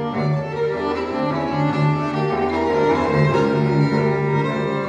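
String trio of violin, viola and cello playing: the cello bows a repeated low note in short strokes under sustained lines from the violin and viola.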